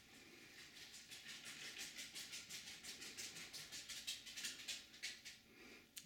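Eastern bluebird bathing in a bird bath: a faint, rapid run of small splashes as it flutters in the water, stopping near the end.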